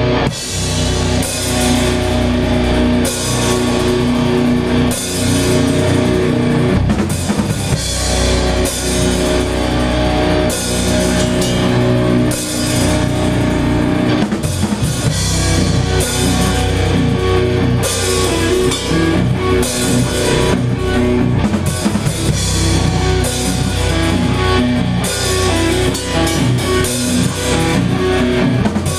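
Rock band playing loud: a drum kit with cymbals driving under electric guitar.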